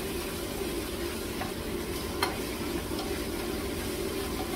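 Floured chicken pieces and peanuts sizzling in oil in a frying pan over high heat as they are stirred with a spatula, with a few clicks of the spatula against the pan.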